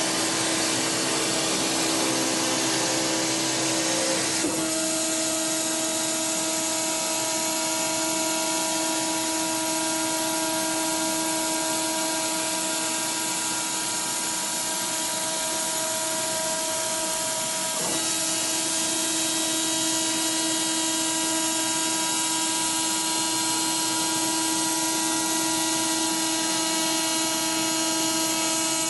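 Gravograph IS900 engraving machine running, its spindle cutter engraving lettering into a sign plate as the head traverses. A steady high whine with several held tones; the pitch mix shifts about four and a half seconds in and again briefly near eighteen seconds as the cut moves on.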